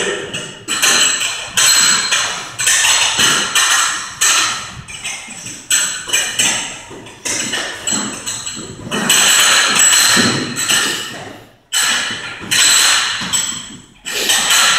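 Heavy battle rope slapping a hard floor in steady waves, about one slap a second, each slap echoing.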